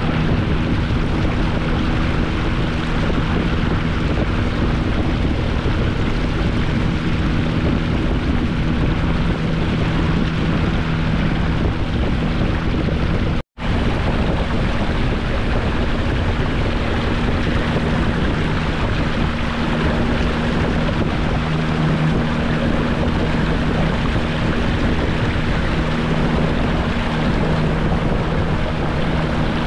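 Small boat's outboard motor running steadily, a low engine hum under wind rushing over the microphone; the sound drops out for an instant about halfway through.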